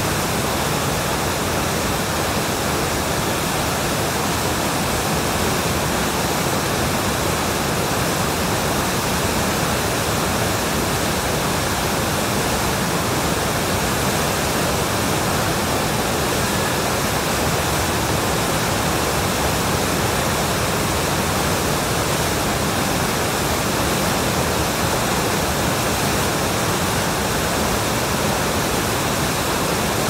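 Muddy floodwater of a swollen river rushing over rocks and rapids: a loud, steady rush of whitewater with no break.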